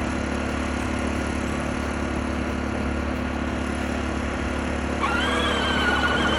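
Electric motors and gearbox of a Peg Perego John Deere Gator battery-powered ride-on toy running with a steady whir. About five seconds in, a wavering high tone joins it.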